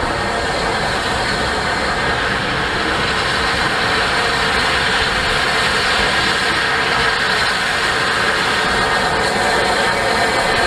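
Rebuilt Bulleid Pacific steam locomotive approaching with its train, a steady rushing noise that grows a little louder over the first couple of seconds and then holds.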